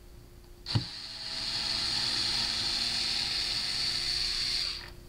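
A knock, then a small motor whirring steadily for about four seconds before cutting off.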